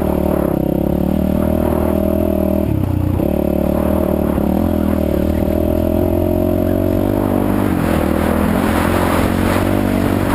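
Yamaha WR450F's 450 cc single-cylinder four-stroke engine running at a fairly steady speed. It dips briefly about three seconds in and sounds rougher and busier in the last couple of seconds.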